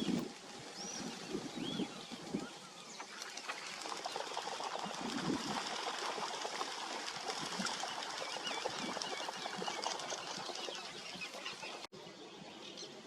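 Waterbirds' wingbeats, a dense fluttering patter from about three seconds in, with short high chirping calls in the first two seconds.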